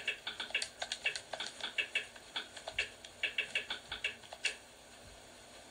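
Rapid, irregular light clicks of typing on a keypad or screen, stopping about four and a half seconds in.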